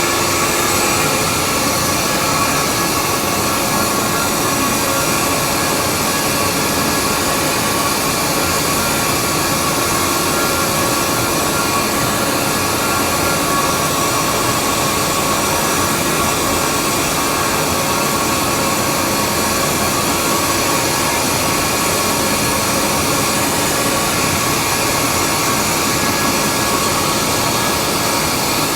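Xinlei 250 hp two-stage screw air compressor running steadily under test: an even, loud machine noise with several constant whining tones on top.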